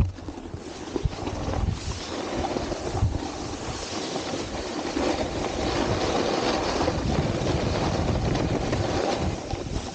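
Snowboard sliding and scraping over icy, hard-packed snow, with a steady rush that grows louder about two seconds in and low thumps from the board chattering over the ice, mixed with wind buffeting the microphone.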